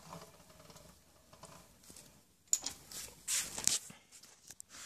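Faint rustling and scraping handling noises, with two short hissy swishes in the middle and a few light clicks near the end.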